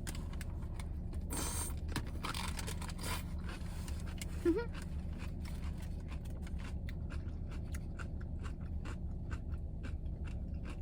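Close-up chewing and crunching on a whole pickle: a run of small wet crunching clicks, thickest in the second half, over a steady low hum.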